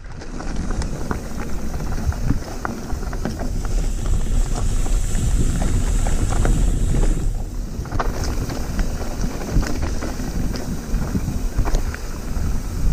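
Mountain bike rolling fast down a rocky gravel trail: wind buffeting the microphone over a constant rattle of tyres on loose stones, with many sharp knocks and clatters as the bike hits rocks.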